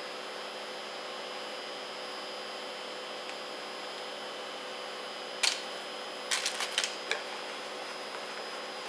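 Steady electrical hum and buzz from workplace machinery in the background. Halfway through come a few sharp clicks and rattles of hands handling speaker cables and cardboard packaging.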